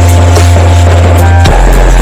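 DJ dance music played very loud through a large sound system of 20 subwoofers. Heavy, held bass notes dominate and drop to a lower note about one and a half seconds in, with light hi-hat ticks above.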